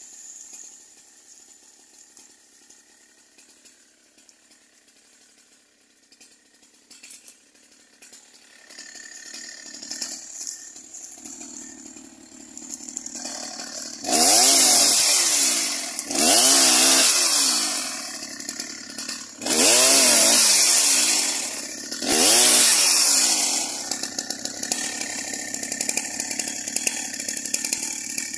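Two-stroke chainsaw, faint at first, then running at idle. About halfway through it is revved to full throttle four times in bursts of about two seconds as it cuts through a branch, the pitch falling back to idle after each cut and running on at idle near the end.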